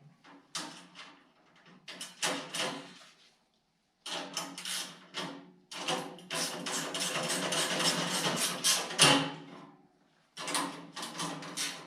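Ratchet wrench clicking in bursts of quick strokes while tightening nuts onto bolts. A long run of rapid clicking in the middle, then steady strokes about three a second near the end.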